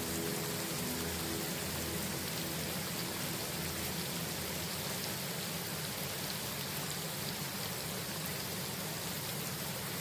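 Steady, even rain falling, with the last notes of a piano chord dying away in the first second or two.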